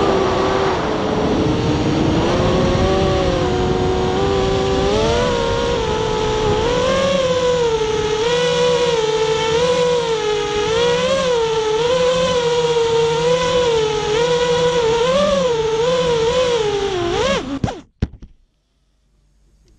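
FPV racing quadcopter's motors and propellers whining, heard through its onboard camera, the pitch rising and falling constantly with the throttle. The whine cuts off suddenly near the end as the motors stop.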